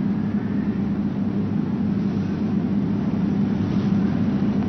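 Long, steady rush of deliberately audible deep breathing, over a constant low hum; this is the breath-with-sound that the yoga teacher asks for as the sign that the lungs are filling.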